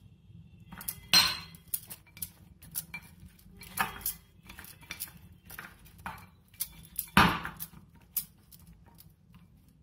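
Metal spoon clinking and scraping against a glass mixing bowl while stirring raw peanuts into a damp buckwheat-flour coating. Irregular knocks, the loudest a little after one second and about seven seconds in.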